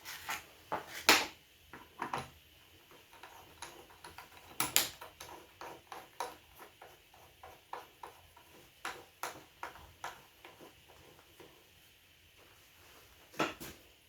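A run of irregular clicks, taps and light clinks of hard parts being handled, the loudest about a second in and again near five seconds and shortly before the end.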